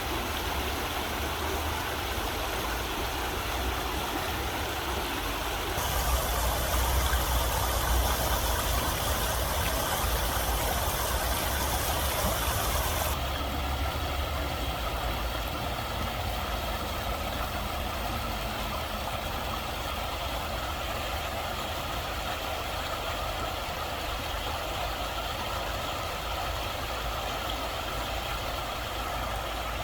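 Steady rushing of flowing stream water with a low rumble underneath. The sound changes abruptly twice: it gets louder and hissier for several seconds in the middle, then drops back.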